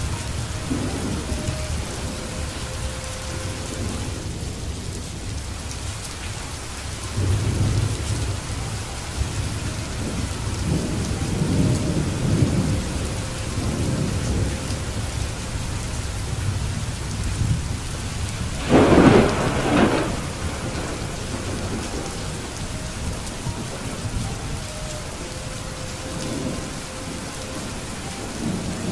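Steady rainfall, with low rolls of thunder swelling and fading and one louder, sharper thunder crack about two-thirds of the way through.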